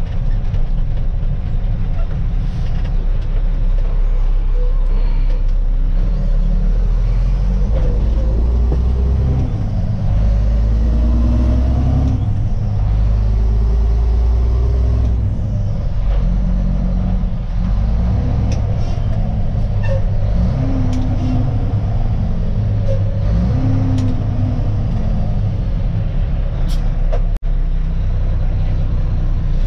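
Mack CH612 dump truck's diesel engine heard from inside the cab while driving, its pitch climbing and then dropping again several times as the Eaton Fuller 10-speed is shifted through the gears.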